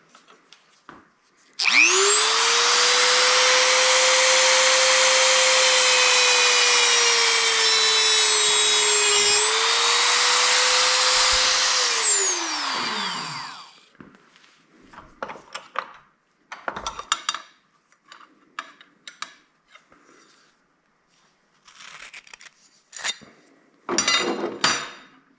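A small high-speed power tool motor runs for about ten seconds with a steady whine that dips slightly once. It is then switched off and winds down, its pitch falling away. Light clicks and taps from handling the metal parts follow.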